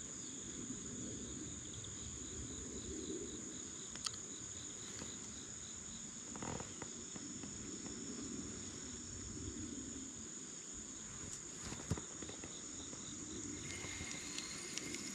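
Insects calling steadily: a high, even tone with a faint regular pulsing. A few light knocks, the sharpest about twelve seconds in.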